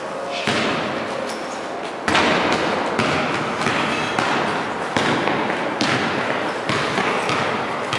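Thuds and knocks from a man exercising on a wall-mounted steel pull-up bar, about one a second, each followed by a fading rush, echoing in a large bare hall.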